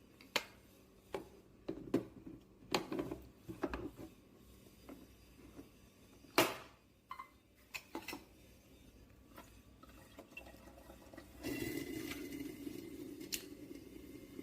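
A series of sharp clicks and knocks, like parts of a capsule espresso machine being handled, opened and fitted, the loudest about six and a half seconds in. About eleven and a half seconds in, a steady hum with a faint high tone starts and carries on.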